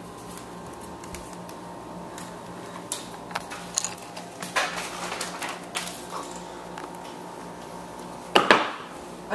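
Plastic toy parts and packaging being handled: scattered light clicks and rustling, with two louder knocks near the end.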